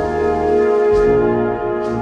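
Brass band playing slow sustained chords, with a percussion stroke about once a second.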